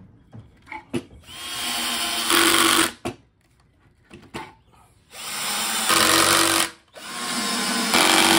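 Power drill running in three bursts of about one and a half to two seconds each, working into wood during pocket-hole joinery, with small clicks and knocks between the bursts.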